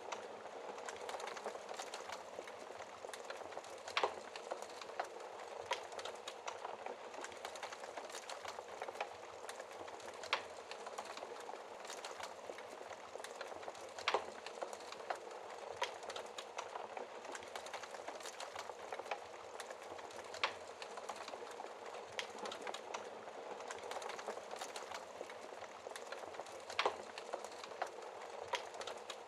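Wood fire burning in a fireplace: a steady crackling hiss with sharp pops every few seconds.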